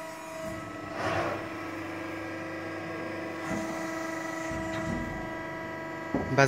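ACCURL 175-ton CNC press brake running with a steady hum from its servo-hydraulic drive, with a short rushing noise about a second in.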